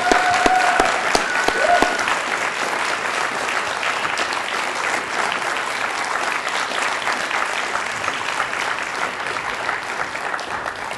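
Audience applauding steadily, starting to die away near the end.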